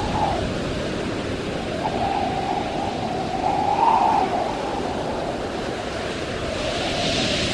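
Sea ambience sound effect: a steady rushing wash of water and wind, with a hollow tone that wavers up and down, and a hiss swelling near the end.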